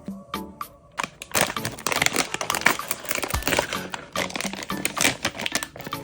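Plastic toy packaging being crinkled and handled, a dense crackling that starts about a second in, over background music.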